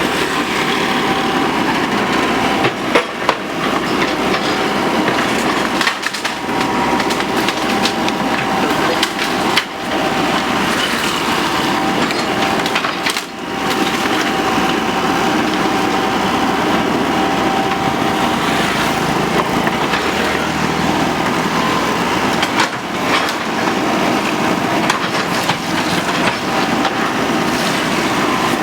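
Hydraulic excavator running steadily under load while it breaks and drags long bamboo stems, with sharp cracks of bamboo splitting several times.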